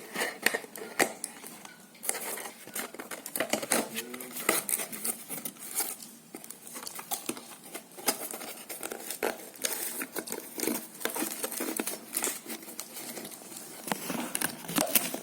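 Plastic toy packaging being handled: scattered small clicks, crinkling and rustling as the ties holding a diecast toy car in its box are worked loose.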